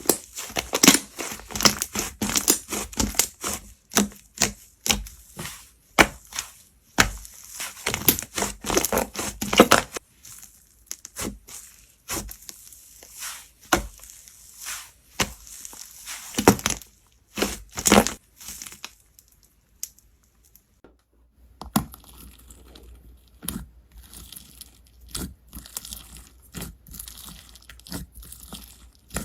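Slime being pressed and stretched by hand, giving fast runs of sharp crackling pops and sticky clicks. The pops thin out past the middle, stop for a moment, then come back softer and sparser over a faint hiss.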